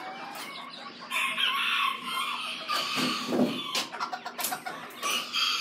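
Miniature bantam chickens calling, with one rooster crowing for about a second, starting about a second in, followed by shorter calls.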